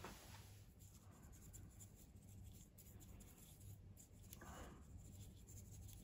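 Near silence with faint scratchy brushing: a small paintbrush dabbing ACF50 anti-corrosion spray around the contacts of a motorcycle handlebar starter switch.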